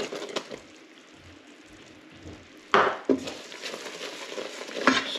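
A spatula stirring quickly in a Ninja Foodi cooking pot, scraping and knocking sharply against the pot a few times, loudest a little past the middle. Bicarbonate of soda is being stirred into hot caramel syrup to make honeycomb.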